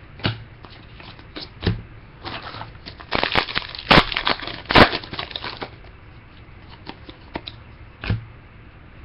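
Crinkling and rustling of a trading-card pack's wrapper and the cards being handled, in scattered short rustles and clicks that are loudest about three to five seconds in.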